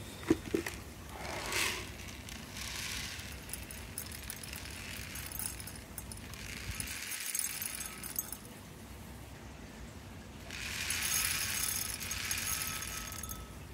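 Granular koi food pellets poured into a glass Pyrex measuring jug, rattling against the glass in several separate pours, the longest near the end.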